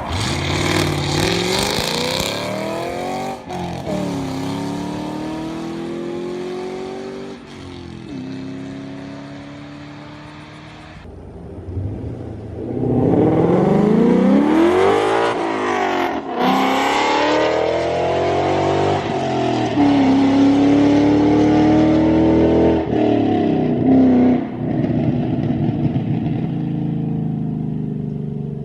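V8 Ford Mustang GT with long-tube headers, off-road X-pipe and Corsa Extreme exhaust accelerating, its pitch climbing through the gears with upshifts about three and a half and seven seconds in, then fading. It comes back louder, rising and falling in pitch as it passes, then holds a steady note before easing off near the end.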